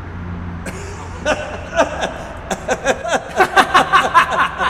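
A man laughing loudly: from about a second in, a fast run of short ha-ha sounds that grows louder toward the end.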